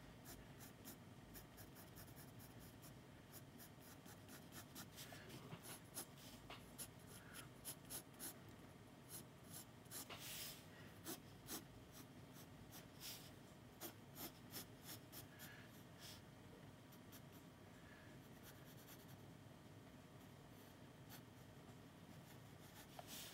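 Pencil scratching on sketchbook paper in many short strokes, faint. The strokes come thickest in the middle and thin out toward the end.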